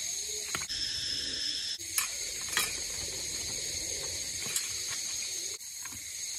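A few light clicks and knocks of small split firewood pieces being handled by an otter, over a steady high-pitched hiss.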